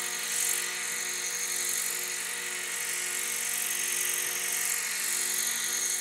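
Radio-controlled helicopter hovering, its motor and rotor blades running at a steady, unchanging pitch with an even hiss on top, held in a test hover while its hover is being adjusted.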